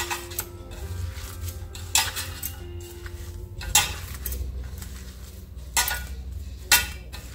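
A metal spoon stirring grated paneer mixed with chopped vegetables and spices in a bowl, scraping with a few sharp clinks against the bowl's side.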